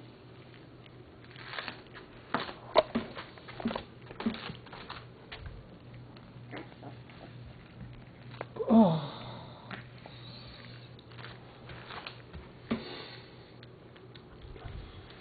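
American Alsatian puppies sniffing and snuffling, with scattered clicks. One short yelp falling in pitch comes a little past halfway and is the loudest sound.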